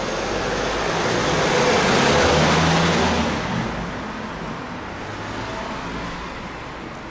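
A road vehicle passing by: engine and tyre noise that swells to its loudest about two seconds in, then fades away.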